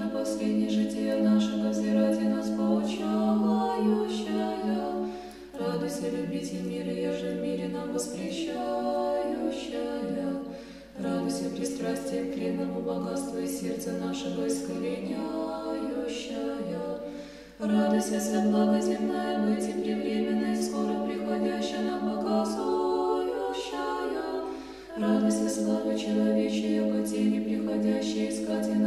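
Orthodox church choir singing a cappella, in sustained chordal phrases of a few seconds each with short breaks between them.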